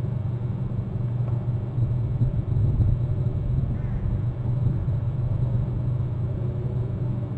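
Steady low outdoor rumble with a faint even hum and no distinct events.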